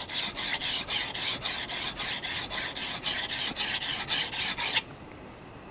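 Kitchen knife's steel edge scraping back and forth on a wet whetstone in quick, even strokes, about five a second, grinding the secondary bevel to raise a burr. The strokes stop abruptly near the end.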